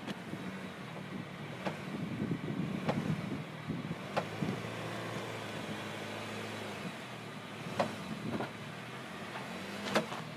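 A car's engine running low and steady as the car rolls slowly onto a plastic chair. Several sharp cracks and crunches come as the plastic breaks under the tyre.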